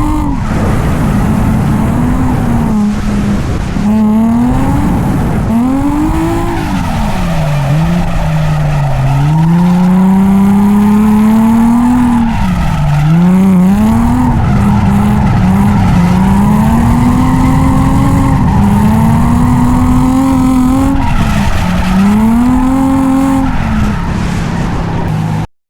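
Nissan 350Z's V6 engine revving hard through a drift, its pitch climbing and dropping again and again over a steady rush of tyre and road noise. The sound cuts off abruptly near the end.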